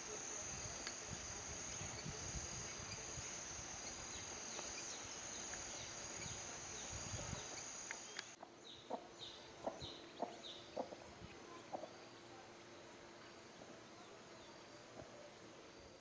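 Countryside ambience: a steady high-pitched insect drone with scattered short bird chirps over an uneven low rumble. About eight seconds in the drone cuts off, and a quieter stretch follows with a few short chirps and clicks.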